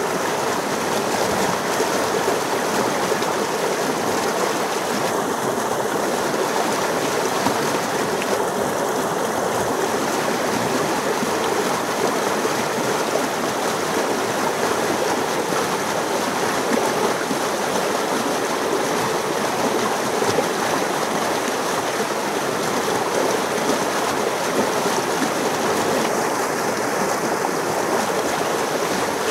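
Stream water flowing and splashing between snow-capped boulders: a steady, unbroken wash of running water.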